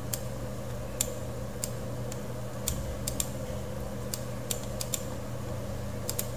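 About a dozen sharp, irregularly spaced computer mouse clicks as objects are selected and moved, over a steady background hum.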